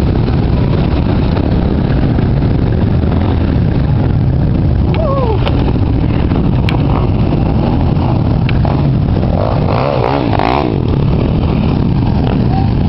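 Several off-road dirt-bike engines running together, a steady low rumble. A few voices call out about ten seconds in.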